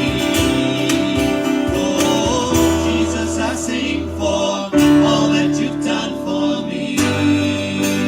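Worship music: a guitar-led band playing with singing.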